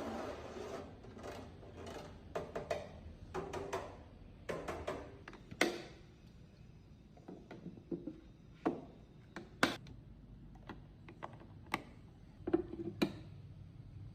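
Scattered, irregular clicks and knocks of a portable party speaker being handled during setup, a dozen or so sharp taps with quiet gaps between them.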